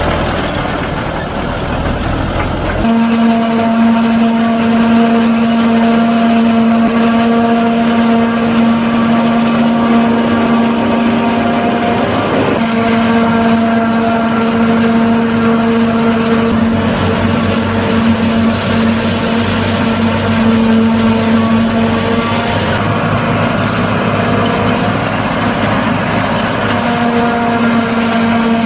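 A Deutz-Fahr Agrotron tractor's diesel engine running for about three seconds, then a sudden switch to the steady, pitched hum of a camera drone's propellers, holding nearly one pitch with small shifts.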